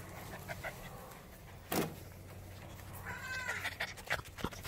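A 7-week-old Bernedoodle puppy giving a short, high-pitched whine about three seconds in. There is a single sharp knock a little before it and a few light taps near the end.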